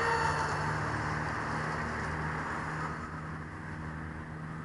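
High whine of a small foam RC airplane's tiny 7mm brushed motors and props passing close by, then fading as it flies off. A steady low hum runs underneath.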